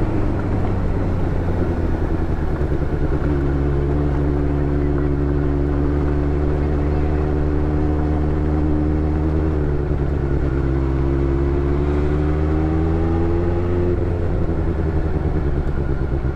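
Benelli 600GT's 600 cc inline-four engine running as the bike cruises, heard from the rider's seat. Its pitch holds steady, dips about ten seconds in, climbs gently for a few seconds, then eases off near the end.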